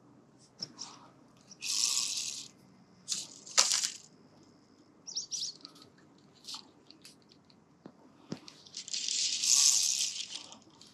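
Scattered sharp clicks and several short, high-pitched rasping, hissy bursts, the longest about nine seconds in.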